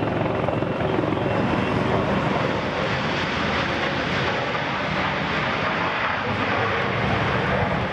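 Boeing 737-800's CFM56-7 jet engines running during the landing roll-out on the runway: a steady, even roar.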